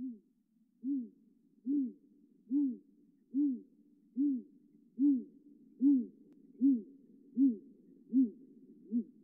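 Owl hooting: a steady series of about a dozen short, low hoots, evenly spaced a little under one a second, each note rising slightly and falling back.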